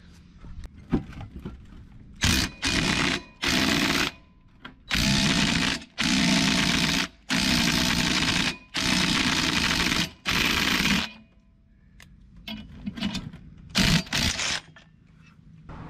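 Cordless DeWalt 20V MAX drill driving the screw of a ball joint press to push a brake caliper piston back into its bore. It comes as a series of trigger pulls of about a second each, then several short blips near the end.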